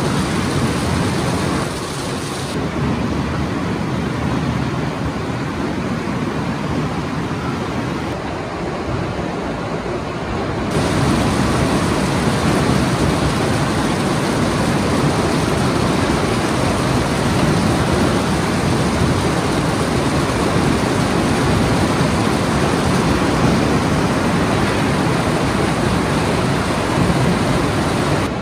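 Yongwon SP400 cone crusher running under load, with rock pouring into its feed bowl: a loud, steady wash of noise from stone and machinery. Its character changes abruptly about two seconds in and again about eleven seconds in.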